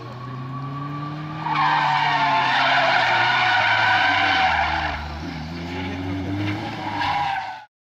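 A car sliding in circles on asphalt, its tyres squealing loudly over an engine that revs up and down. The squeal starts about a second and a half in and eases after about five seconds. It comes back briefly near the end, then the sound cuts off suddenly.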